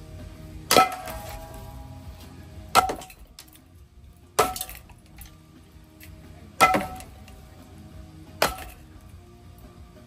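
Cheap ceiling fan running slowly, with a sharp metallic clank about every two seconds, five in all, each ringing briefly.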